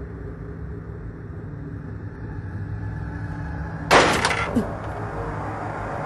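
Low, steady drone from an anime scene's soundtrack, slowly growing louder. About four seconds in comes a sudden sharp sound whose pitch falls quickly, with a smaller one right after.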